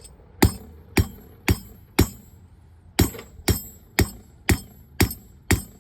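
Hand hammer striking hot 1/4-inch square steel bar stock on an anvil, drawing out a taper. There are about two blows a second, each with a bright ringing tail: four blows, a pause of about a second, then six more.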